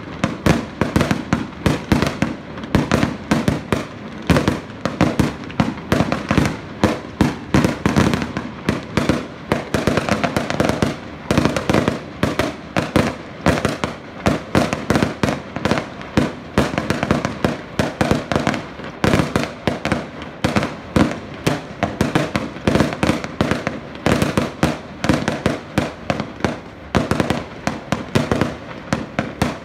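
Fireworks display: a rapid, unbroken barrage of aerial shell bursts, several bangs a second.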